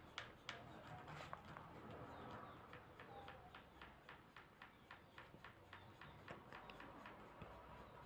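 Faint scratching of a coloured pencil sketching on sketchbook paper: quick short strokes, a few each second.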